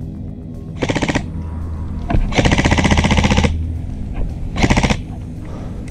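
ASG Scorpion EVO airsoft electric gun firing three full-auto bursts: a short one about a second in, a longer one of about a second near the middle, and a short one near the end.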